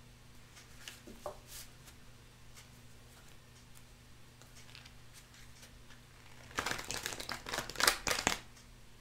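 A deck of tarot and oracle cards being handled and shuffled: faint soft clicks of the cards for most of the time, then a brisk run of rapid card riffling and rustling near the end.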